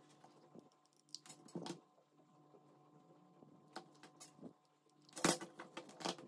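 Small pieces of denim fabric being folded and pinched between fingers: faint scattered rustles and soft taps, the loudest a short cluster about five seconds in.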